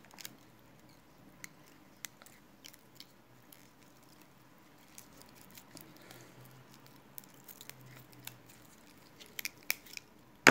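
Faint handling noises of elastic bait thread being wound around a razor-clam bait: scattered small clicks and crackles of shell and thread under the fingers, with a few sharper clicks near the end.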